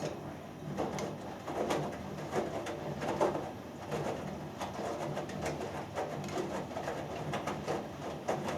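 Hoover Dynamic Next front-loading washing machine in its main wash. The drum tumbles the wet load, giving repeated swishes of water and laundry, roughly two a second, over a steady low motor hum.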